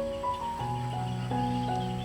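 Background music: a gentle melody of held notes changing about every half second over a steady low note, with a faint insect-like chirring underneath.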